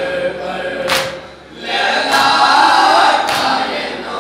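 A group of men reciting a Shia noha together, chanted in unison by several voices, with a short break between lines about a second and a half in. Sharp slaps land about once a second in time with the chant: matam, beating the chest with the hand.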